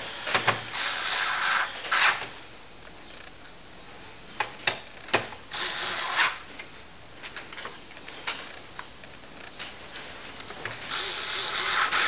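A hand screwdriver turning the bezel screws back into a TRS-80 Model 4's keyboard bezel: three spells of scraping, each about a second long, with scattered sharp clicks and taps between them.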